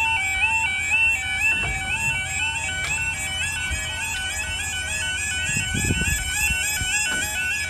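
UK level crossing 'yodel' warning alarm sounding as the barriers lower: a loud electronic tone switching back and forth between two pitches.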